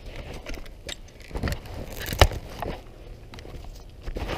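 Handling noise from a pump-action pellet rifle held close: a few scattered clicks and knocks, the loudest about two seconds in, over a low rustle.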